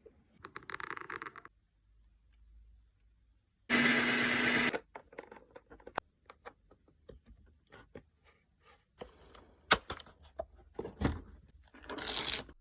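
Workshop tool noises: a loud one-second burst of a power tool about four seconds in, a shorter burst near the end, and scattered clicks and knocks in between.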